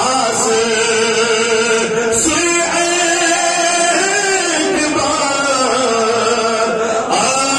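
A man singing a Kashmiri naat (devotional praise of the Prophet) in a chanting style, drawing out long melodic lines with a few short breaks.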